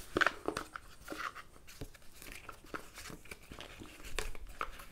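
Oracle cards being leafed through in a box by hand: irregular light clicks and rustling of card against card.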